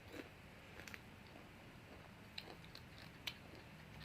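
Faint chewing with a few soft mouth clicks, over near silence.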